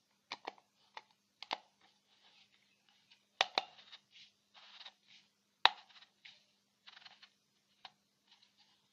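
Hard plastic parts of an LED bulb clicking and scraping as the diffuser dome is fitted onto the ribbed housing by hand. Irregular sharp clicks, loudest about three and a half and five and a half seconds in, with short rubbing sounds between.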